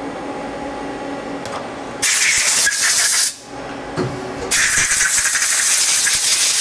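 Compressed air hissing in two bursts, the first about a second long and the second about two seconds, after a steady machine hum.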